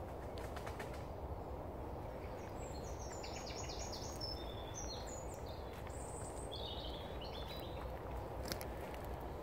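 A songbird singing a rapid run of short, high notes for about five seconds over a steady low outdoor background noise, with a sharp click near the end.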